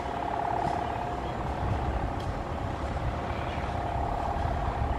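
CC 201 diesel-electric locomotive standing and idling, a steady low engine rumble. A high steady whine rides over it, strong at the start and again near the end.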